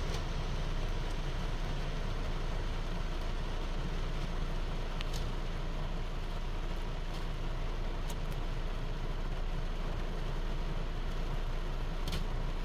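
Heavy rain falling steadily, an even hiss with a strong low rumble, with a few sharp drip ticks scattered through it.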